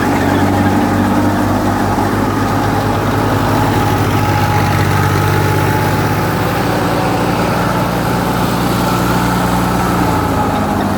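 Wheat thresher running at work, a loud, steady machine drone with an even low hum that holds its pitch.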